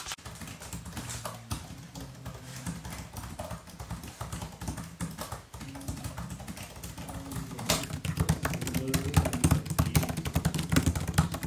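Fast typing on a laptop keyboard: a quick, irregular patter of key clicks that gets louder and denser about eight seconds in.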